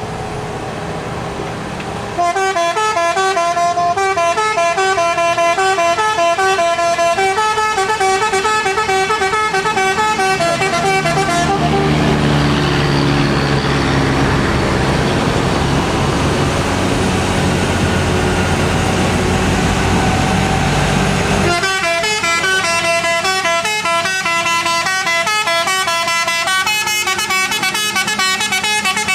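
Telolet truck horn playing a rapid tune of stepping notes, broken for about ten seconds in the middle by the loud rumble of a heavy truck's diesel engine going past, before the horn tune starts again.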